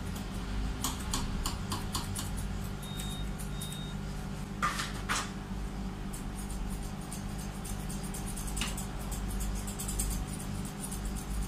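Grooming scissors snipping a Pomeranian's coat around the feet and legs: runs of quick metallic clicks, with two louder snips about halfway through, over a steady low hum.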